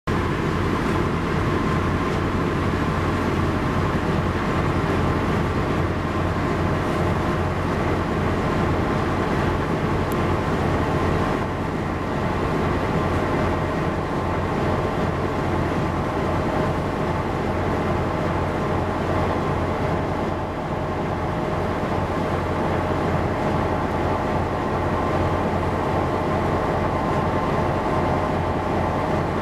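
A ship's engine drone, steady and unchanging, with a deep low rumble and a constant hum over it.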